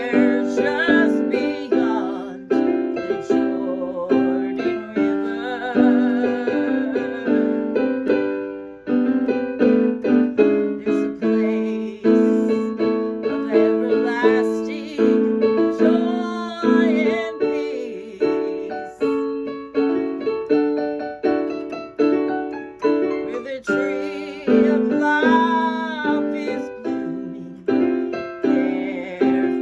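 Music: a piano-like keyboard playing chords, each struck and left to die away, about once a second.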